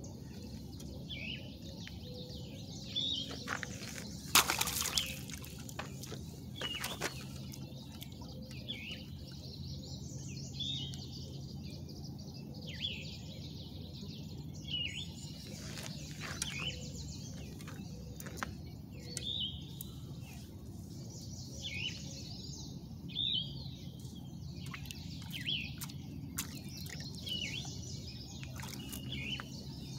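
Small birds chirping in short, repeated calls over a steady low hum, with a few sharp knocks and rustles, the loudest about four seconds in.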